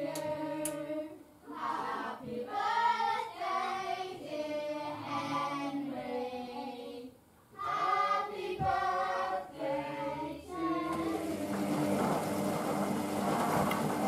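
A voice singing in short phrases for the first eleven seconds or so. It stops, and the Hoover Vision Dynamic washing machine's drum is heard turning through its final rinse, with water sloshing in the drum.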